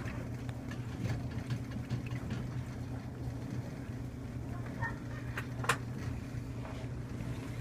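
2012 LG top-load washing machine running a heavy-duty wash cycle: a steady low motor hum with scattered light clicks and knocks, and one sharp click a little past the middle.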